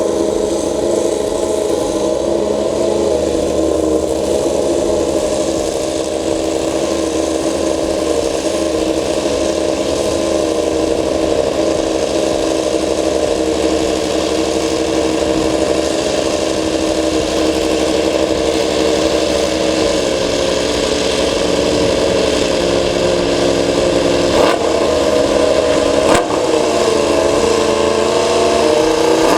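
Suzuki MotoGP racing motorcycle's inline-four engine being warmed up, running loud and steady at a high idle, with two short throttle blips near the end.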